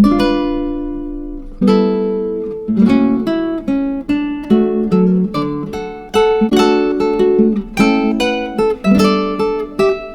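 Background music: acoustic guitar playing plucked notes and strummed chords, each note ringing out and fading.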